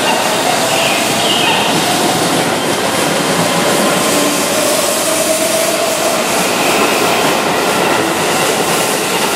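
Keihan 7000-series VVVF electric train pulling out of a station and picking up speed, its motor whine slowly rising in pitch over the running noise of the wheels on the rails.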